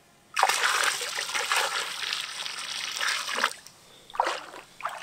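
Water poured from a bucket splashing into the lake for about three seconds, then short splashes as a large mirror carp kicks free of the angler's hands and swims off.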